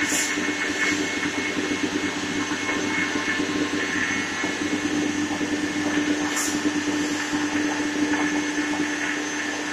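Anderson CNC router running: a steady machine hum with one constant mid-pitched tone, and two short hisses, one just after the start and one about six seconds in.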